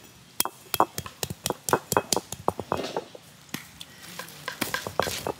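Stone grinding roller knocking and crushing turmeric root on a stone grinding slab (ammi kal): a run of sharp, irregular stone-on-stone knocks and crunches, several a second.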